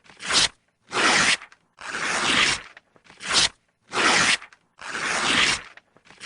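Paper being torn over and over: a series of separate rips, about one a second, some short and some stretched to nearly a second, with brief pauses between them.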